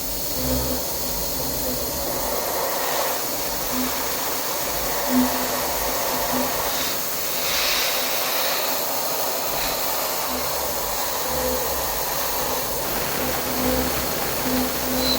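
CNC vertical machining centre (Yangtuo VMC950) milling carbon steel with an end mill: a steady hissing machining noise with short, intermittent tones as the cutter works.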